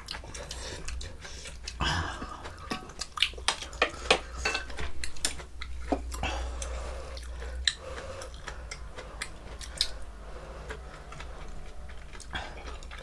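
Spoons and chopsticks clinking and scraping against bowls and dishes during a meal, in a run of irregular sharp clicks that is busiest a few seconds in.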